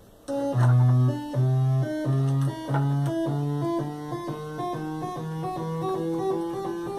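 Modular synthesizer oscillators, frequency-modulated by other oscillators used as LFOs, playing a stepping sequence of electronic notes after a brief silence at the start. A low note repeats about once a second under higher notes that jump in pitch, and the steps grow shorter and quicker later.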